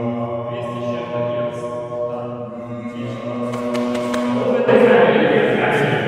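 Voices chanting a long, steady hummed drone. It swells louder about three-quarters of the way through.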